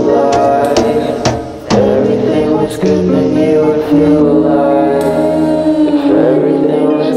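Background music: a song with held sung notes over instruments and occasional drum hits.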